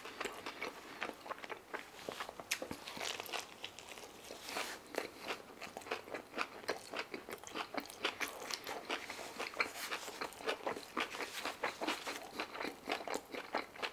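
A man chewing a mouthful of shawarma wrap close to the microphone: a continuous run of quick, irregular mouth clicks and smacks.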